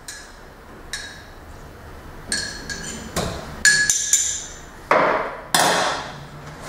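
Metal teaspoon clinking against a mug as tea is stirred: several short ringing clinks, then two louder knocks near the end.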